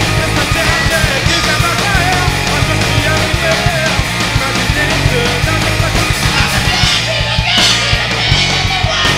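A rock band playing live: electric guitars, bass guitar and a drum kit playing together.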